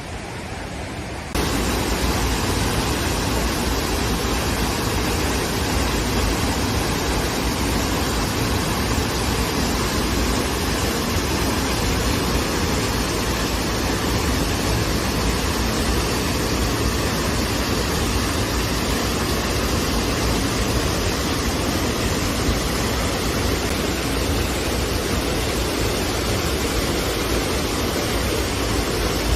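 Waterfall's falling water rushing steadily, an even hiss with no breaks; it steps up louder about a second in.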